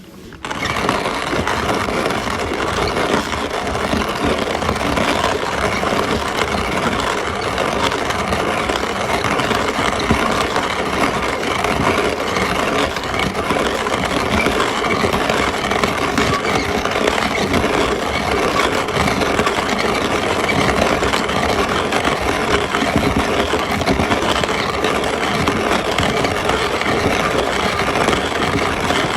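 An old tool grinding: a steady, rough rasping that starts about half a second in and keeps on without a break.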